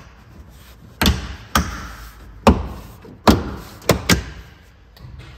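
A car interior trim piece being pried and pulled loose: about six sharp, irregular knocks and clicks over roughly four seconds.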